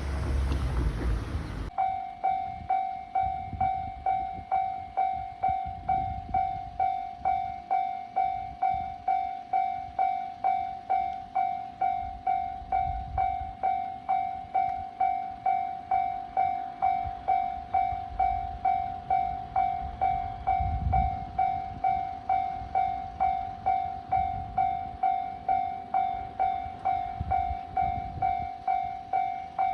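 Railway level-crossing warning bell starting abruptly about two seconds in, after a moment of wind noise on the microphone, then ringing steadily: a single bright tone struck about three times every two seconds, each strike fading before the next, signalling an approaching train.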